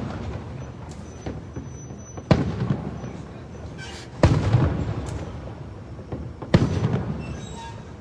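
Aerial fireworks shells bursting: three sharp bangs about two seconds apart, each trailing off in a low rumble, with the fading rumble of an earlier burst at the start.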